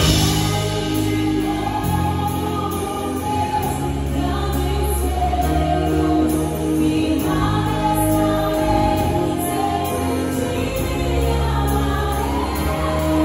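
Live worship band playing a gospel song: a drum kit with cymbals and a full band under a group of singers.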